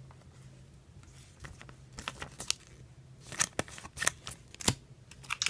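Pokémon trading cards being handled by hand: card stock sliding and clicking against card stock in scattered sharp ticks, sparse at first and busier from about two seconds in.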